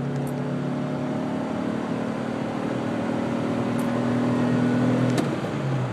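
1993 Ford Ranger's 3.0-litre V6 pulling hard under heavy throttle, heard from inside the cab as a steady drone that grows slowly louder. About five seconds in the note cuts off abruptly with a click, then picks up again just before the end.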